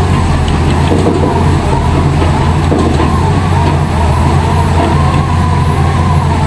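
Heavy diesel construction machinery running steadily: a loud, unbroken low engine drone with a wavering whine above it.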